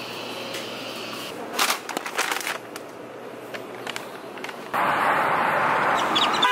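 Steady café room tone with a low hum and a few sharp clatters, then a sudden cut to louder, even outdoor noise in a parking lot.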